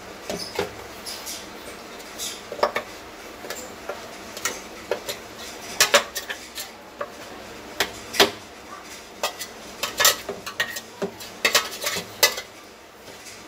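Stainless steel mixer-grinder jar being scraped out with a metal spoon to empty thick ground chickpea paste into a steel bowl: irregular metal clinks and scrapes, with sharper knocks scattered through.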